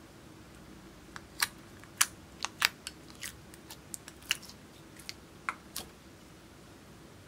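Orange slime peeled out of a clear plastic tub, giving irregular sharp sticky clicks and pops that stop about six seconds in.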